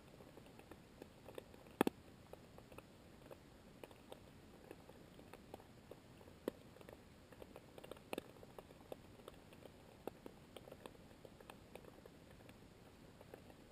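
Faint underwater crackle: scattered, irregular clicks and ticks over a quiet hiss, with a sharper double click about two seconds in and another about eight seconds in.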